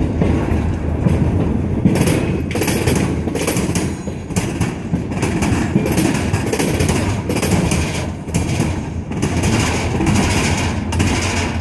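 Freight train of TTX flatcars rolling past, the wheels giving a steady low rumble with repeated clacks as the trucks cross rail joints.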